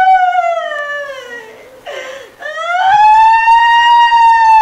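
A woman wailing in long, high-pitched cries. The first cry slides down and fades about a second and a half in. After a gasping breath, a second cry rises and holds steady.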